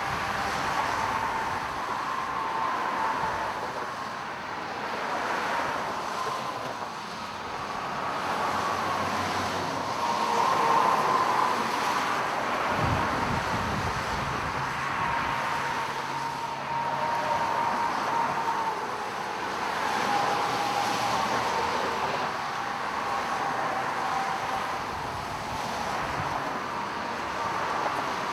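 Freeway traffic: a steady wash of vehicle noise that swells and fades as vehicles pass, with a thin whine that wavers slightly in pitch. There is a brief low rumble about thirteen seconds in.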